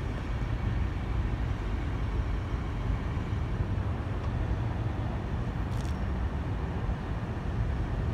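Steady outdoor background noise in a car park: a low rumble under a broad hiss, with a brief faint high hiss about six seconds in.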